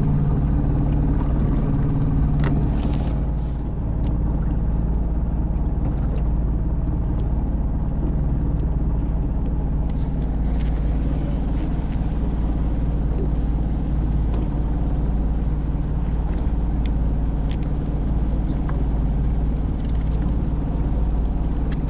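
Fishing boat's engine running steadily with a low, even hum that does not change.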